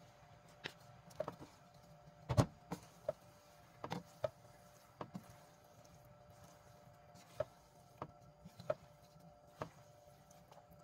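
Scattered light clinks and knocks of kitchen utensils against cookware, irregular and a few a second at most, with a stronger knock about two seconds in. A faint steady hum runs underneath.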